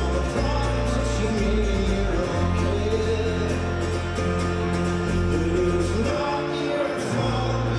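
Folk-rock band playing live: a strummed acoustic guitar over sustained low bass notes that change every second or two, with a man singing.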